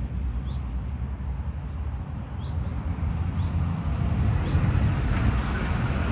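Wind rumbling on the microphone, with rustling of brush growing louder about halfway through. A small bird's short rising call repeats faintly about once a second.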